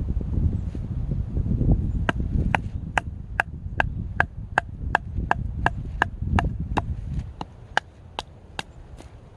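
Quick, regular chopping of firewood with a blade: sharp strikes at about two and a half a second, starting about two seconds in and stopping near the end, over a low rumble.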